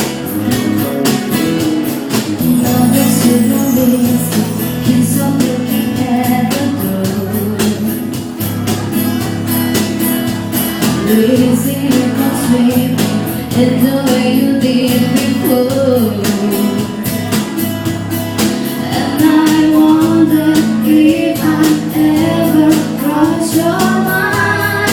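Live ska band playing with a singer, drums and guitar keeping a steady upbeat rhythm.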